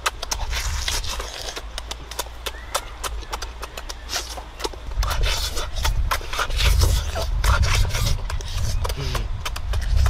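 Chewing and lip-smacking while eating roasted chicken by hand: many irregular wet clicks and meat tearing. A low rumble comes in about halfway through.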